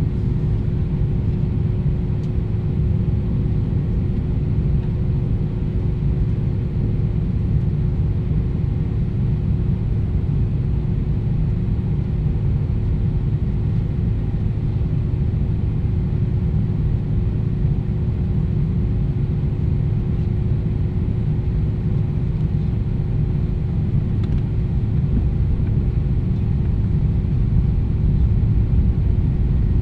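Cabin noise of an Airbus A320 on the ground with its jet engines idling: a steady low rumble with a steady hum over it, growing a little louder near the end.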